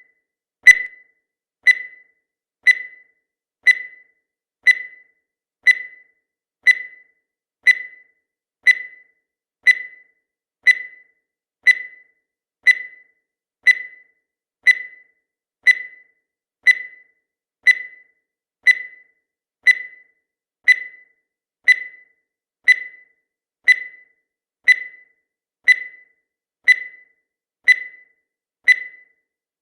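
Countdown timer sound effect: a short, high electronic blip once every second, each fading away quickly, in a steady, even rhythm.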